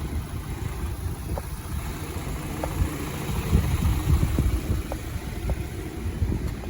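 2013 BMW X3 diesel engine idling with the A/C running: a steady low rumble, with a few faint light ticks.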